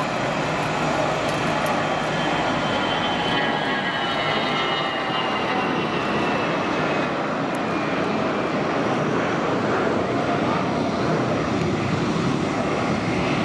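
Twin Rolls-Royce Tay turbofan engines of a Fokker 100 jetliner at takeoff climb power, a steady loud rushing jet noise. A faint high whine slides down in pitch over the first half as the jet climbs away.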